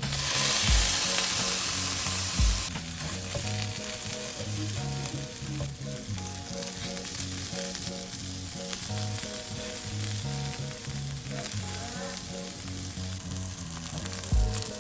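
Microwaved brown-and-serve sausages sizzling in a hot skillet. The hiss is strongest for the first few seconds after they go into the pan, then settles to a steady sizzle. Background music plays underneath.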